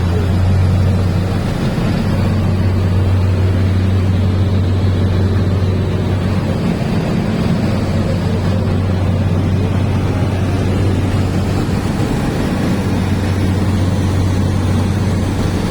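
Speedboat engine running steadily under way, a constant low drone with the rush of wind and water over it.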